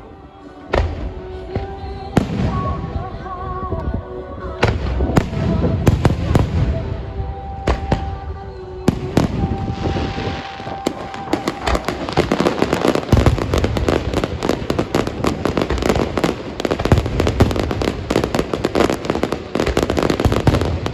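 Fireworks going off: separate sharp bangs with low booms in the first half, then a dense, continuous crackle of rapid reports from about halfway through.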